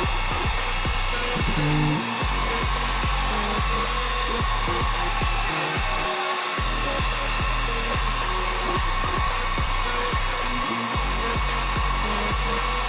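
Electric heat gun blowing steadily with a constant whir, heating a thread-locked nut on the rear shock to soften the threadlocker.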